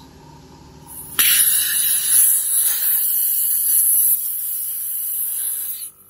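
Compressed air hissing out of a train horn kit's air tank as a valve on it is opened, starting suddenly about a second in and cutting off near the end. Letting the pressure down is what trips the tank's pressure switch to restart the compressor.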